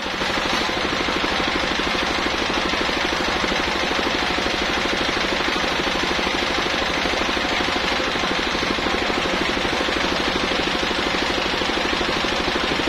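Circular saw blade ripping lengthwise through a coconut-palm trunk, running steadily under load with a fast even pulsing underneath. It gets louder about half a second in.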